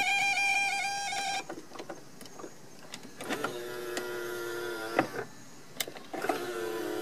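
Power-folding door mirror on a Mercedes-Benz V-Class W639: a high-pitched wavering squeal that cuts off about a second and a half in, then the mirror's fold motor whirring twice for about two seconds each, each run ending in a sharp click as the mirror reaches its stop. The squeal is the abnormal noise the mirror makes when folding and unfolding.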